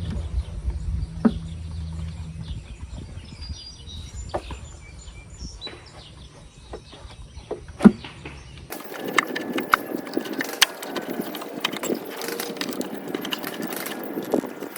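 Scattered clicks and knocks of hand work on an engine's valve cover and the cables around it, over a low rumble that fades in the first few seconds. About nine seconds in the sound changes abruptly and the clatter becomes denser.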